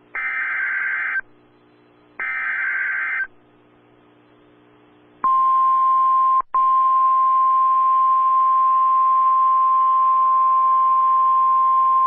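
Emergency Alert System SAME header data bursts, two harsh buzzy squeals about a second long each with short silences between, followed about five seconds in by the steady single-pitch NWS warning alarm tone, which drops out for a split second once and then continues.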